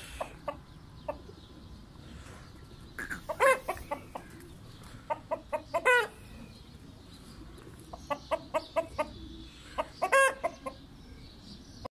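Desi rooster clucking: runs of short, quick clucks broken by three louder, drawn-out calls spaced a few seconds apart.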